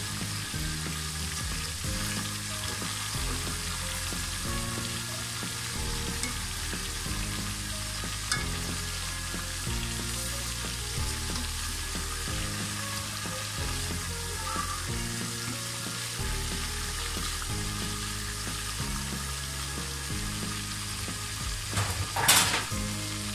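Chicken pieces deep-frying in hot oil, a steady sizzle as a wire strainer turns them, with a sharp knock near the end. Soft background music with low notes plays underneath.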